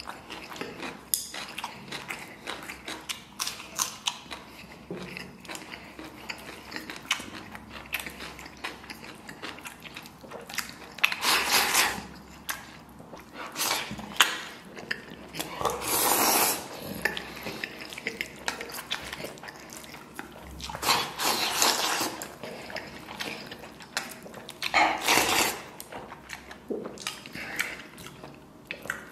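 Close-up eating sounds: a man chewing and slurping a bowl of rice, noodles and braised pork belly, with many small clicks of wooden chopsticks against a stainless steel bowl. Several louder, noisy slurps stand out at intervals of a few seconds.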